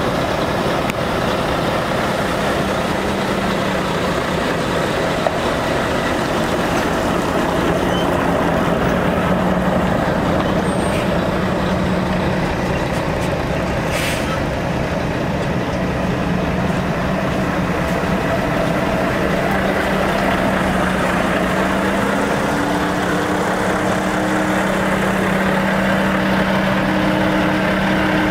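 Volvo FM tipper truck's diesel engine running steadily, with a constant low hum. About two-thirds of the way through, a second, slightly higher tone joins it. A short hiss comes about halfway through.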